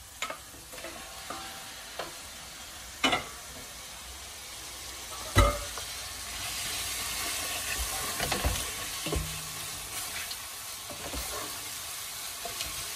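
Raw chicken pieces sizzling in hot oil and fried onion in an aluminium pressure cooker while being stirred with a wooden spoon. The frying hiss grows louder about six seconds in, with a few sharp knocks, the loudest about five seconds in.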